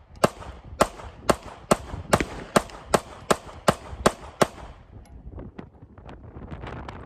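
Compact Sig Sauer P320 9mm pistol fired in a steady string of about eleven shots, roughly two and a half a second, stopping about four and a half seconds in. A few fainter cracks follow.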